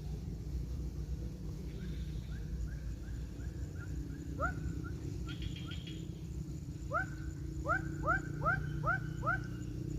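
An animal calling outdoors: a run of short, upward-sliding chirps, about three a second, faint at first and louder in a run of six near the end, over a steady low rumble.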